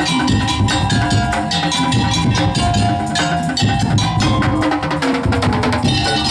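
Madurese daul (tong-tong) music: a percussion ensemble playing a fast, dense beat of drums and wooden slit drums under a melody of held, pitched notes.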